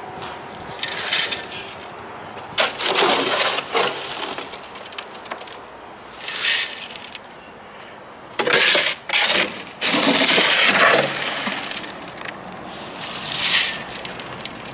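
Steel shovel scraping and scooping gritty fill into a fence-post hole around a steel post, in irregular crunching bursts.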